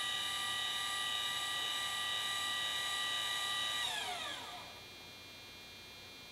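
Celestron CGX equatorial mount's motor whining steadily as it slews on the declination axis, then winding down in pitch and stopping about four and a half seconds in. The right-ascension axis stays still, the fault that sent the mount back to Celestron.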